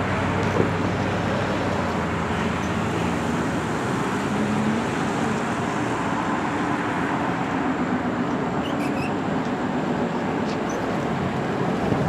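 Steady road traffic noise with a vehicle engine running close by, its pitch shifting as it moves off.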